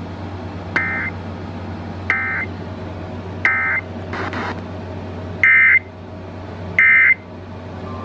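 Emergency Alert System SAME digital data bursts over FM radio: five short, buzzy two-tone bursts about a second and a half apart, the last two louder, the end-of-message code that closes a severe thunderstorm warning relay. A brief burst of hiss comes in the middle, over a steady low hum.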